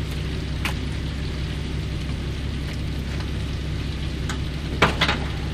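A fishing boat's engine running with a steady low hum, with a few sharp knocks and slaps over it: one about a second in and a louder pair near the end, as fish are thrown into a plastic fish tub.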